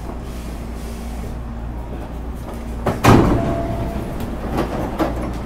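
Inside a Hankyu 8300 series commuter train standing at a station, with the air conditioning humming steadily. About three seconds in, the passenger doors slide open with a sudden loud clunk and a rattle, followed by a few lighter knocks.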